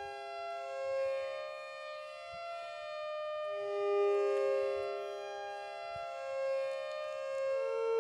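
Background music: a slow melody of long held notes, each sustained for one to two seconds before stepping to the next pitch, with no beat.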